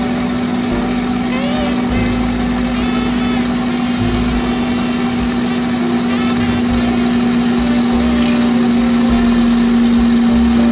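A loud, steady machine hum at one unchanging pitch, like a motor or engine running, with fainter wavering higher tones over it.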